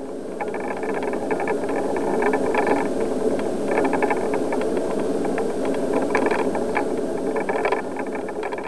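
A bicycle rolling over concrete paving slabs, heard through a camera mounted on the bike: a steady rolling rumble with frequent rattling clicks from the bike and the camera mount.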